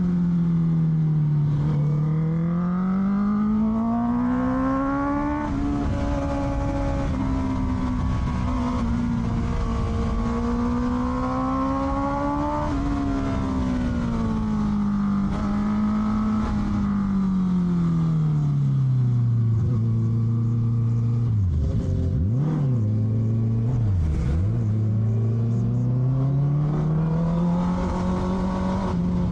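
Honda CBR650R's inline-four engine running through an Akrapovic exhaust under way, its note climbing and falling slowly as the revs change. About two-thirds of the way through the revs drop sharply and spring back twice in quick blips.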